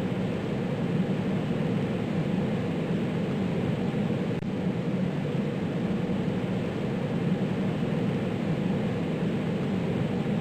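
Jet fighter's engine roar, a steady low rumble that holds an even level without swelling or fading.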